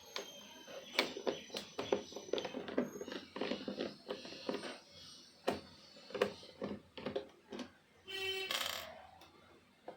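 Irregular clicks, taps and knocks of plastic parts and screws being handled as a car's instrument cluster is taken apart, with a brief pitched squeak and a short rasp about eight seconds in.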